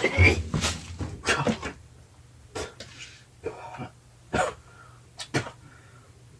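A man coughing and breathing sharply in a string of short bursts, reacting to the heat of a habanero pepper he has just eaten.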